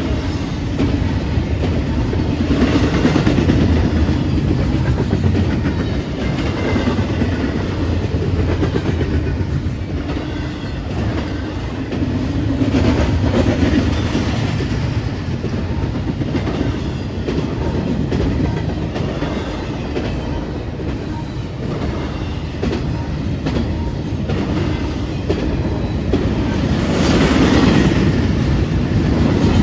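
Train cars rolling past, their wheels clicking over the rail joints, with a steady rumble that swells and eases every few seconds.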